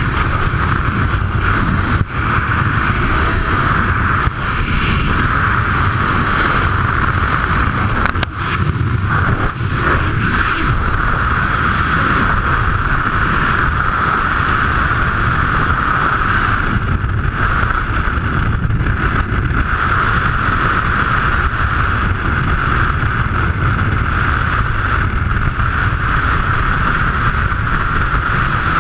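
Steady, loud rush of freefall wind over a helmet-mounted camera's microphone during a skydive.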